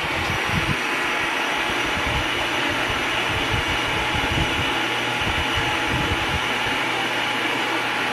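Bladeless fan running, a steady rush of air from its base impeller with an uneven low rumble underneath.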